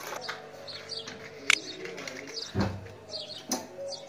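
Small birds chirping faintly in the background, with a low knock about two and a half seconds in and a couple of sharp clicks, as a steel saucepan is handled and a gas stove burner is lit.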